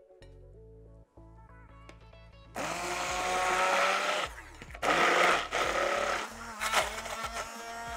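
Hand blender running as it purées a thick mix of smoked salmon and cream cheese. It switches on about two and a half seconds in and runs in several stretches with short pauses, over soft background music.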